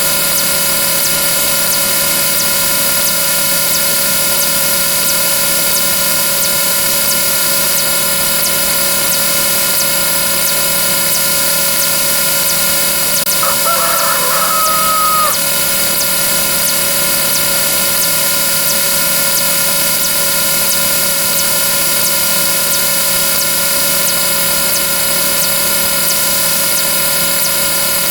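A rooster-crowing sound effect sounds once about halfway through, a short held call that drops at its end. Under it runs a loud, steady buzz of many overlapping tones made by other sound effects repeating very fast.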